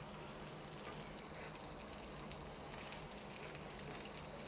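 Chicken shami kababs shallow-frying in a little oil on a flat dosa tawa over a medium flame: a steady, fairly quiet sizzle with fine crackles.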